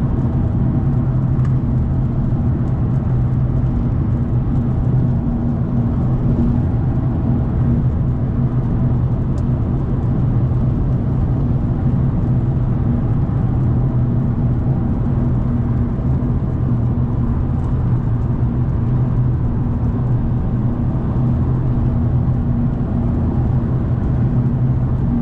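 Turbocharged car cruising at a steady highway speed, heard from inside the cabin: a constant low engine drone mixed with tyre and road noise.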